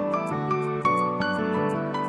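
Background music: sustained instrumental notes changing pitch over a light, regular ticking beat.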